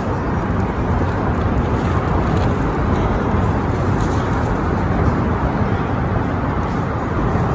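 Steady noise of road traffic, a constant wash of passing vehicles with no single event standing out.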